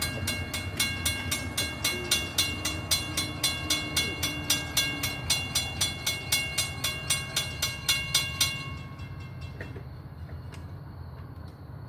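Railroad grade-crossing bell ringing about three strokes a second as the crossing gates come down, stopping abruptly about eight and a half seconds in. A low steady rumble runs underneath.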